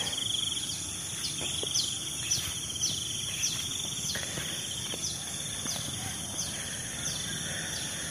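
Insects trilling and humming steadily, with a short, high falling chirp repeated about every two-thirds of a second.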